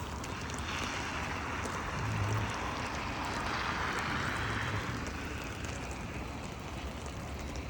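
A vehicle passes through flood water running over the street: a steady rush of water whose hiss swells for a few seconds and then eases, over a low engine hum.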